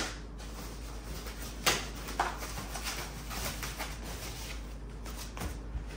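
Packaging being handled: soft rustling of the wrap, with a sharp click at the start and another about a second and a half in.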